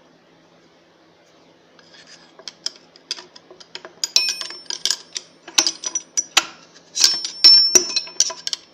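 Metal parts of a lathe's variator gearbox knocking and clinking as a crooked gear is nudged back into place. After a short pause come many irregular metallic taps, the loudest near the end, each leaving a high ringing note.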